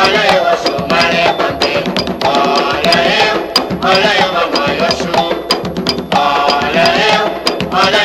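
Umbanda devotional song to Oxum: singing in phrases of a second or two over drums and sharp, wood-block-like percussion strokes.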